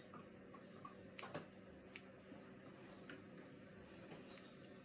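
Faint, irregular snips of grooming scissors trimming the hair along a Soft Coated Wheaten Terrier puppy's ear, a handful of short clicks over a low steady hum.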